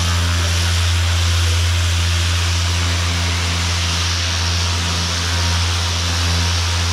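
Power sander running steadily, sanding body filler on a car panel: a constant low motor hum under an even hiss.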